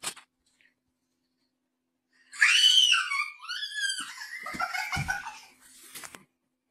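A girl's high-pitched squeal of surprise, sliding down in pitch, then breaking into shaky, half-laughing, half-crying cries.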